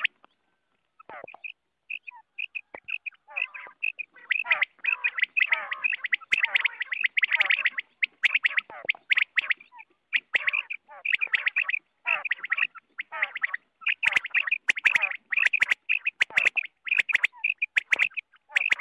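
Common quail calling: quick runs of short, sharp calls repeated over and over, several birds overlapping. After a short lull near the start, the calls come back and are densest in the middle.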